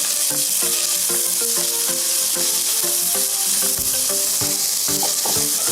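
Seasonings sizzling steadily as they fry in hot oil.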